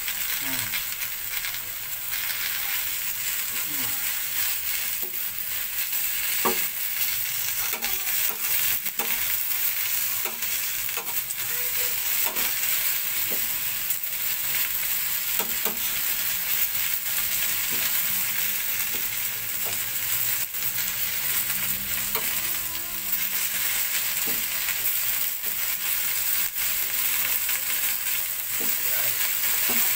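Fern shoots (pucuk paku) sizzling steadily on a hot grill plate lined with banana leaf. A metal utensil tosses them, scraping and tapping the plate every so often.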